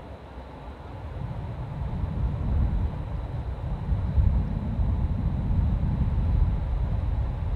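Line 1 commuter electric train running with a low rumble that builds about a second in and stays loud.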